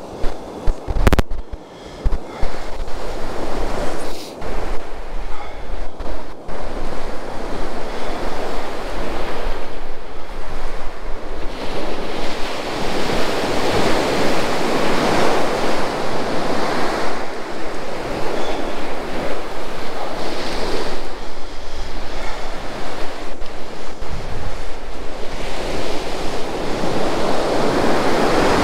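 Surf breaking on a sandy beach, its rush swelling and fading every several seconds, with wind rumbling on the microphone. There is a sharp knock about a second in.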